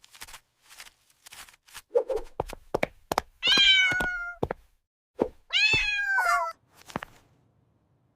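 A kitten meows twice, each call about a second long and falling in pitch, among a scatter of light taps and clicks.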